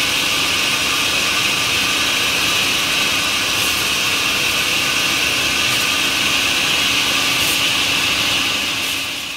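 Countertop blender motor running at a steady speed, puréeing raspberries and other red berries with orange juice into a smoothie; it winds down near the end.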